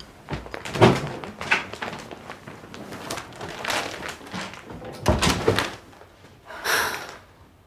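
Indoor handling sounds: a few separate knocks and thumps, the heaviest about a second in and about five seconds in, and a rustling swish near the end.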